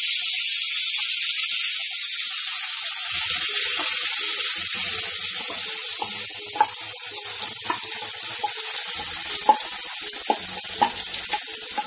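Onion, raw mango and green chilli paste sizzling loudly as it hits hot mustard oil in a kadhai, a steady hiss that slowly eases. From about three seconds in, more paste is scraped in from a plate and the oil spits with small sharp pops.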